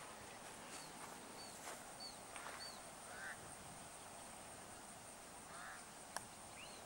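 Faint bird calls, a series of short rising-and-falling chirps, over quiet open-air ambience. About six seconds in comes a single sharp click: a golf club striking the ball on a short stroke.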